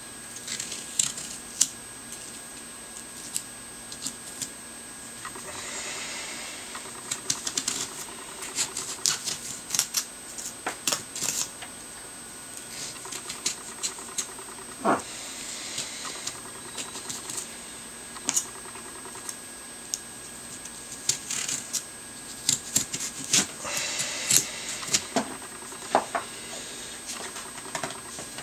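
A hand carving tool cutting and scraping into pumpkin flesh. It makes irregular crisp clicks and ticks as small bits of flesh are cut away, with a few longer scratchy scraping strokes in between.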